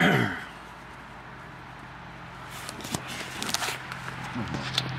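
Handheld camera being handled and turned around: several sharp clicks and bumps in the second half, over a steady low hum. A short voice sound with falling pitch right at the start.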